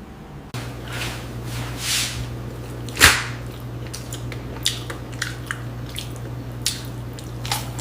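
Close-miked eating sounds: wet, squishy chewing with one loud sharp click about three seconds in and scattered smaller clicks, over a steady low hum.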